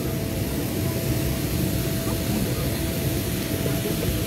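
Steady aircraft running noise on an airport apron: a low, uneven rumble with a constant whine over it.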